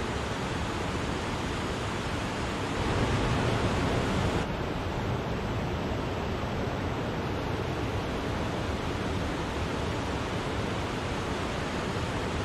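Wachirathan Falls: water falling in a steady, even rush with no breaks. It swells a little louder about three seconds in, and a second or so later it turns abruptly duller, losing some of its hiss.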